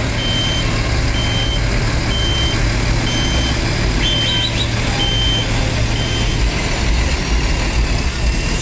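Diesel city bus engine idling with a steady low hum, while a short, high electronic warning beep repeats about once a second.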